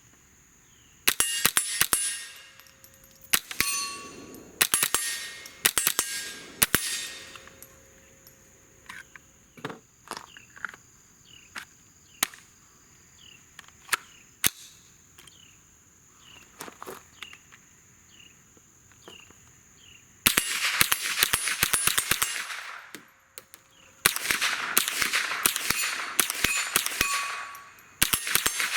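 Suppressed Smith & Wesson M&P 15-22 .22 LR semi-automatic rifle firing subsonic standard-velocity rounds. It sounds as quick strings of sharp clacks, mostly the action cycling back and forth, with metallic ringing after them. The shots come in short strings and single shots at first, then two longer rapid strings near the end.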